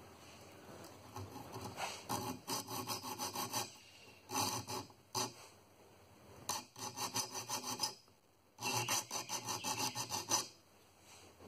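Small triangular saw file rasping across the steel teeth of a Disston backsaw in about four runs of quick strokes, with short pauses between the runs: the teeth being sharpened to a rip-cut pattern.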